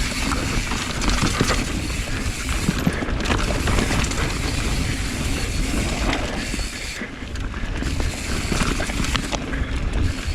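Mountain bike ridden fast down a loose, dusty dirt trail: wind rushing over the camera microphone, tyres crunching and sliding on loose ground, and the bike rattling with many small knocks over the bumps.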